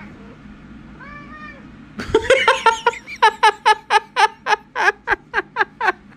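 Cat vocalising: one faint meow about a second in, then a loud rapid string of short meows, about four a second, for about four seconds.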